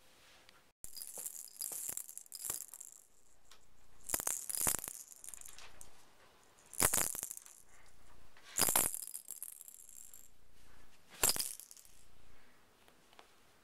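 Small plastic toy rattle shaken in short bursts, about five times, each a bright, high rattle.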